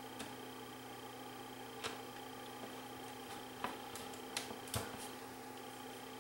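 A screwdriver and screws clicking and tapping on the sheet-metal case of a VHS VCR as the cover screws are fitted: a few faint, separate clicks over a steady background hum.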